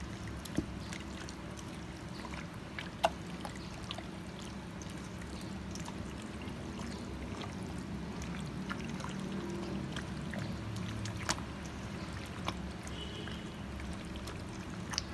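Hands mixing raw chicken thighs in a wet marinade: soft, steady squishing with a few faint clicks, over a low hum.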